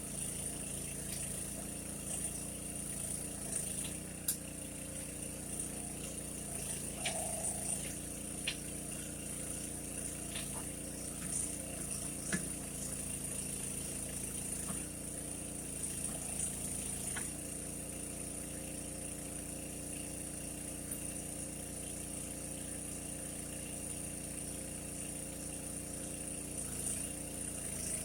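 Mini backhoe's small engine running steadily, its pitch stepping up and down a few times as the hydraulics are worked, with scattered light clanks and knocks.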